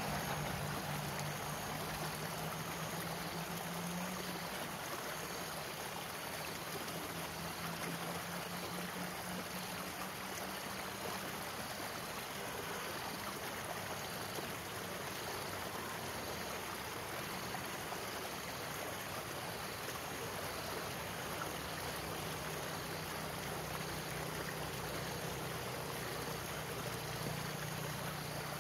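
Stream water running steadily out of a stone culvert, a continuous rushing.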